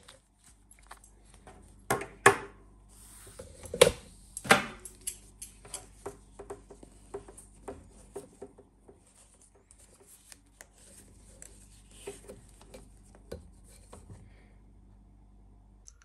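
Handling sounds of a pocket knife's awl being worked through a leather belt: scattered small clicks and scrapes, with a few sharp knocks about two and four seconds in.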